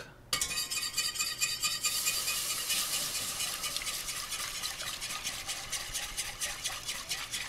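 Wire whisk beating quickly against a stainless steel saucepan, a dense steady clatter of rapid strokes, starting about a third of a second in. Whole milk is being whisked into a butter-and-flour roux to make a smooth, lump-free sauce.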